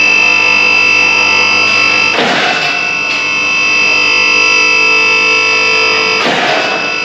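Background music: distorted electric guitar holding sustained chords, with fresh hits about two seconds in and again about six seconds in.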